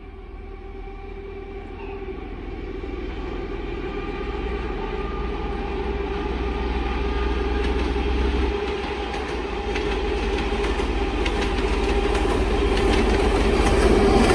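A train approaching, growing steadily louder, with a steady droning hum.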